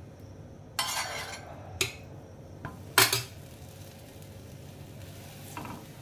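A metal kitchen utensil clattering against an iron tawa griddle: a short scrape about a second in, then sharp clinks, the loudest about three seconds in, and a faint one near the end.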